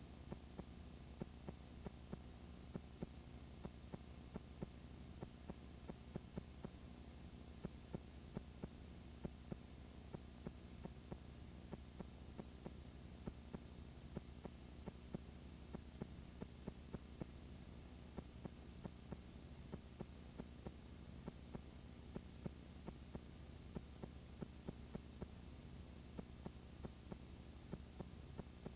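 Low steady hum with faint ticks about twice a second: the playback noise of a blank, unrecorded stretch of videotape.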